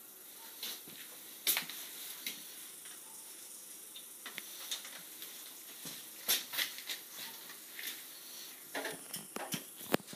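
Irregular clicks, taps and light knocks of hands working on parts in a car's engine bay, over a faint steady hiss; the sharpest clicks come about a second and a half in, around six seconds in, and just before the end.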